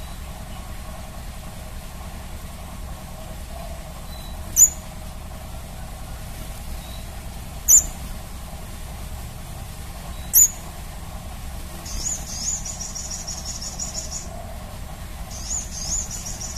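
Crimson sunbird calling: three sharp, very high single notes a few seconds apart, then two rapid, high trilled song phrases of about two seconds each.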